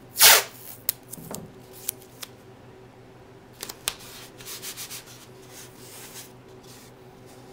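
A strip of tape is pulled off its roll with a short, loud rip near the start. A few small clicks and taps follow, then a rustling a few seconds in as the tape is rubbed down by hand onto a plexiglass template.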